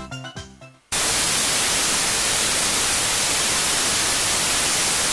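Television static sound effect: a loud, even hiss of white noise that cuts in abruptly about a second in and holds at one level. The last notes of background music fade out just before it.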